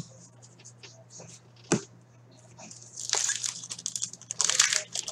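A foil trading-card pack being torn open, crinkling and ripping in a run of noisy bursts that begin about three seconds in. Before that come two sharp clicks of cards being handled.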